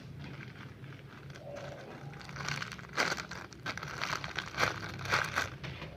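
Irregular crinkling and rustling of material being handled, starting about two and a half seconds in and running in quick, uneven strokes for about three seconds.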